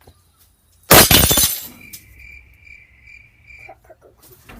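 A wine glass shattering as a fidget spinner is dropped onto it: one loud crash of breaking glass about a second in, lasting about half a second. A high, pulsing tone follows for about two seconds.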